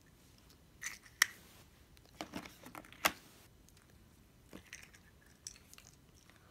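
Small plastic toy packaging being handled and opened: scattered crinkles and light clicks, with two sharper clicks about a second in and about three seconds in.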